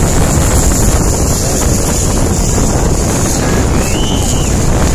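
Heavy wind buffeting on the microphone over the engines of two-stroke motocross bikes revving on the dirt track. The wind is the loudest thing throughout, and a rising and falling engine note comes through about four seconds in.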